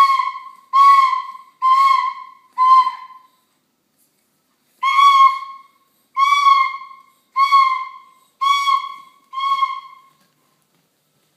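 A small child blowing a wooden flute in short toots, all on the same high note, each starting strong and fading. Four toots come, then a pause of about a second and a half, then five more.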